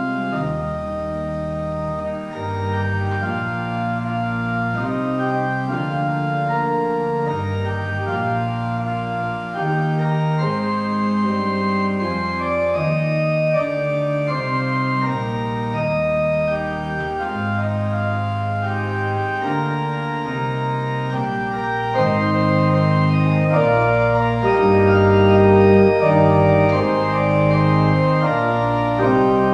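Organ postlude: held chords over a bass line that steps from note to note, swelling louder over the last several seconds.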